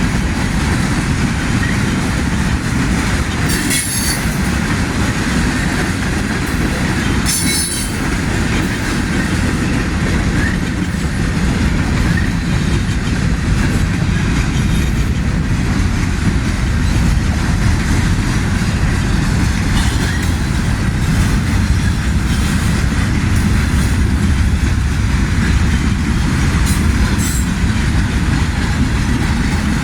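Freight cars of a slow-moving manifest train rolling past, a steady low rumble with wheel clatter. A few brief high wheel squeals cut through, the clearest about four and eight seconds in.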